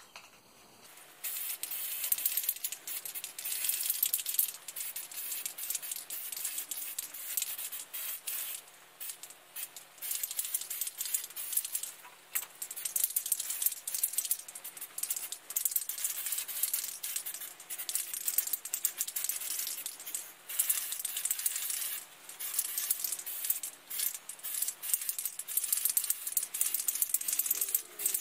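Aerosol spray-primer can hissing in repeated uneven bursts with short pauses between them, with the clatter of the can's mixing ball rattling.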